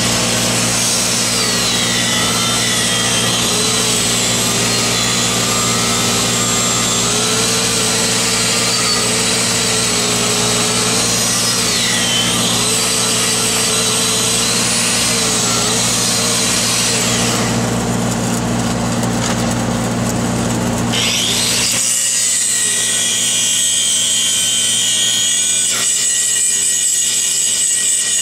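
Hand grinder grinding on a steel pipe weld, a continuous gritty grind whose motor pitch wanders up and down as pressure on the disc changes. Under it runs a steady low machine hum that stops about three-quarters of the way through.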